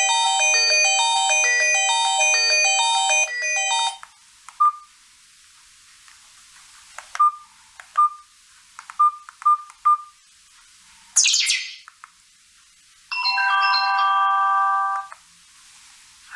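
Maxvi B10 mobile phone's loudspeaker playing its preset ringtone and alert tones: a short electronic melody for about four seconds, then a few short single beeps at one pitch, a brief falling chime around eleven seconds in, and a held electronic chord for about two seconds near the end.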